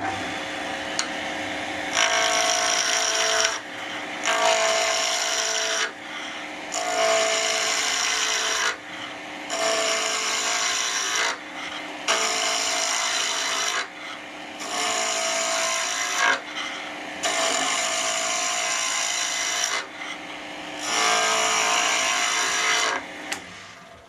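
Wood lathe running with a steady hum while a hand-held turning tool cuts a spinning segmented padauk-and-cherry pen blank. The cutting comes as about eight rough scraping passes, each a second or two long, with short gaps between them, and stops near the end.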